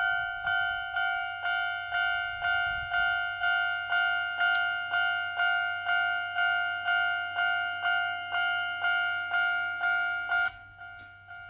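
Japanese railway level-crossing alarm sounding the old standard electronic warning tone, a clear ding repeating about twice a second. About ten seconds in it drops to a much quieter level and keeps dinging.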